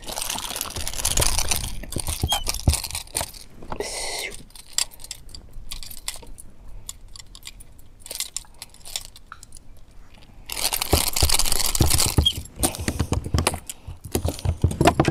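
A small snook being unhooked on a boat deck: the fish flapping and thrashing against the deck while metal pliers and a lip gripper rattle and click on the lure. Irregular clicks and knocks, with stretches of crackling hiss near the start and again about two thirds of the way through.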